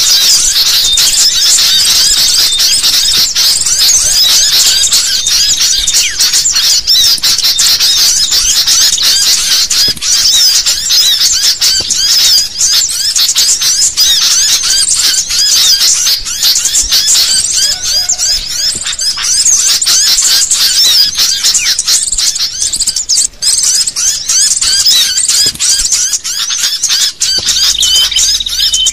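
A noisy flock of sooty-headed bulbuls chattering all at once: quick, high-pitched chirps and squeaks overlapping densely with no break. It is a bird-catching lure call of agitated bulbuls.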